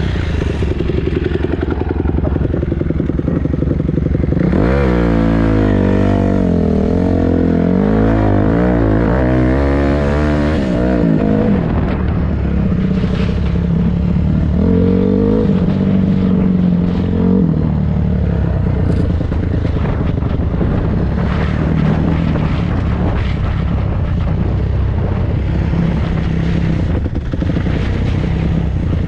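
Dirt bike engine running under load as it is ridden, its pitch rising and falling again and again as the throttle is worked for the first dozen seconds, then running steadier.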